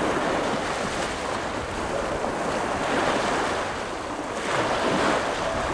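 Sea waves washing, with wind buffeting the microphone, swelling and easing.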